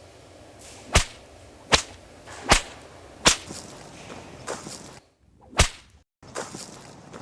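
Whip cracking, four sharp cracks about three quarters of a second apart, then a fifth a couple of seconds later; added sound effects for a film.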